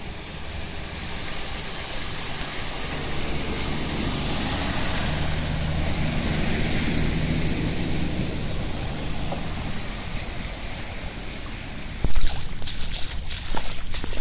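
An Audi estate car driving through deep floodwater, its engine humming under a steady wash of water from its wheels that swells and fades as it passes. About twelve seconds in, this gives way to sandalled footsteps splashing through the flooded road.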